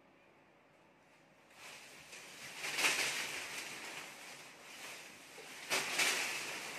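Paper banknotes rustling as a pile of them is scattered and tossed into the air. It starts about a second and a half in, with louder surges near three and six seconds in.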